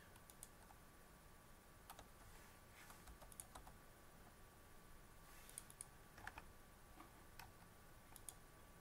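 Faint, irregular clicks of a computer mouse and keyboard, some in quick little runs, over near-silent room tone with a faint steady electrical tone.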